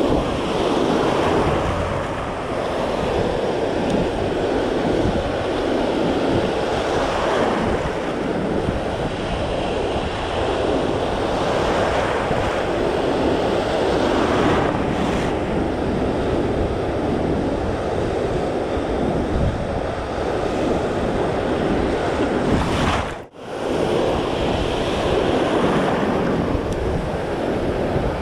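Ocean surf breaking and washing in shallow water, swelling and easing wave by wave, with wind buffeting the microphone. The sound cuts out for a moment about three-quarters of the way through.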